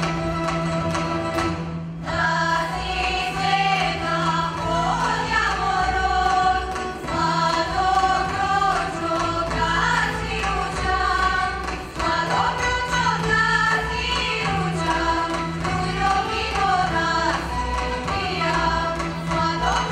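A women's folk vocal group singing in several parts over a low held drone, with a short break about two seconds in and another near the middle.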